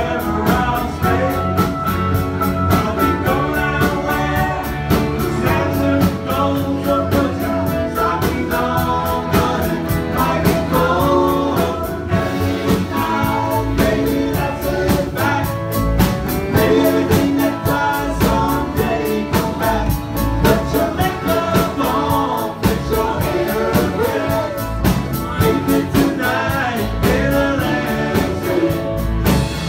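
Live band playing amplified music with accordion, electric guitars, bass and drums, with a steady beat.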